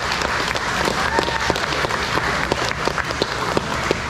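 A small crowd applauding, with individual hand claps standing out.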